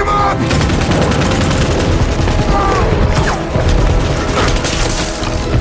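Rapid, sustained automatic rifle fire in an action-film sound mix, with music and voices underneath.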